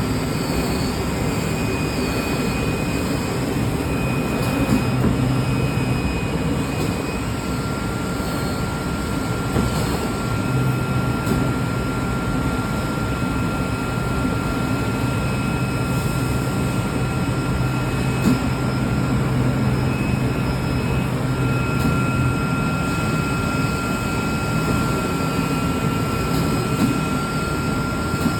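CNC fabric cutting machine and its vacuum table running: steady machine noise with a high whine, and a low hum that drops out and comes back.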